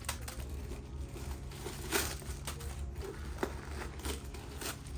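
Handling noise from a coated-canvas handbag and its packaging: crinkling and rustling with scattered small clicks and taps, over a steady low hum.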